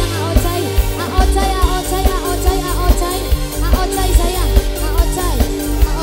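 Live dangdut street-procession music in an instrumental passage: a melody sliding up and down in pitch over a steady beat of low drum strokes and held chords.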